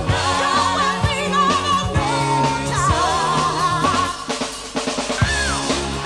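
Live pop-soul band: female vocals sung with a wide vibrato over bass and a drum kit. About four seconds in, the singing stops for about a second, leaving mostly drum hits, then a voice comes back in with a sliding note.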